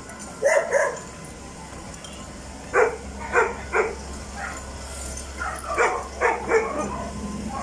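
A dog barking in short, separate barks: a couple about half a second in, then a pause, then repeated barks in quick clusters through the rest.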